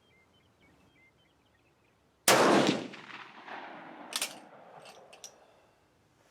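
A single rifle shot from a Swiss K31 in 7.5x55mm Swiss, about two seconds in, with a long echoing tail. About two seconds later comes a sharp metallic clack, then a few lighter clicks.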